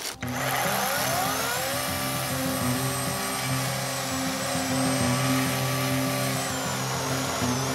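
Greenworks 40V cordless chainsaw's electric motor spinning up with a rising whine in the first second or so, then running steadily under load as the chain cuts through a large log.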